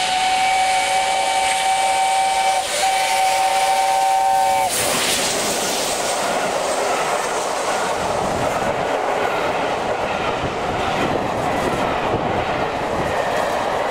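Steam whistle of LNER Peppercorn A1 Pacific 60163 Tornado sounding a chord of several notes, held for about five seconds with a brief break near the middle, as the engine approaches. About five seconds in the locomotive rushes past, and then its coaches roll by with wheels rumbling and clicking on the rails.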